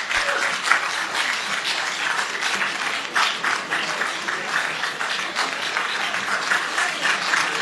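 Sustained applause from a crowd: many hands clapping at once, steady throughout.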